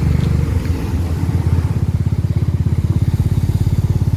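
Motorcycle engine heard from on board while riding. The throttle eases off about half a second in, and the engine then settles into a fast, even beat.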